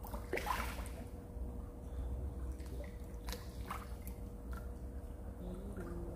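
A splash into the pond water about half a second in, followed by a few light drips and plops, over a faint steady hum.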